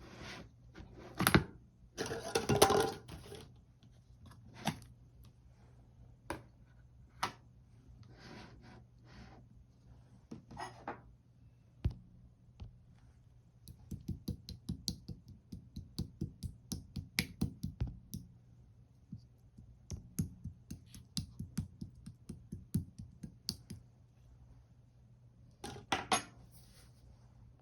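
Pearl marbling slime played with by hand: pokes and presses setting off quick runs of small sticky clicks and pops, several a second. A few louder handling noises stand out about a second in, around two to three seconds, and near the end.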